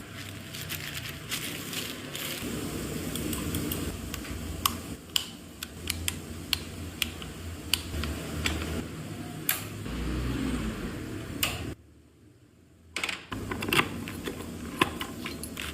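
Irregular clicks and knocks of tools and parts being handled in workshop work, over a steady low hum. The sound drops almost to silence for about a second near the end, then the clicking resumes.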